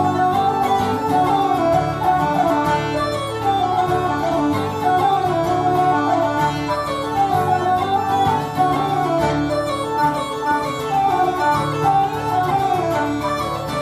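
Irish traditional band playing a jig live: uilleann pipes and whistle carry the quick melody over strummed acoustic guitar and other plucked-string accompaniment.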